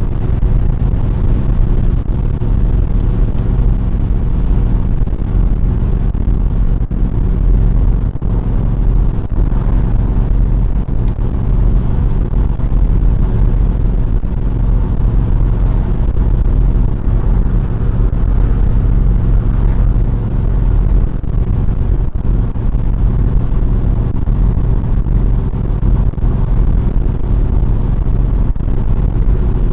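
1973 Chrysler Newport's 400 cubic-inch big-block V8 cruising at a steady highway speed, near 2700 rpm, with road noise: an even, unbroken drone.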